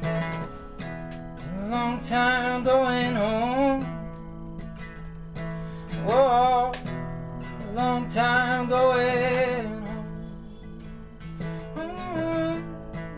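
Acoustic guitar played live with a man's voice singing over it in several phrases, the guitar carrying on in the gaps between them.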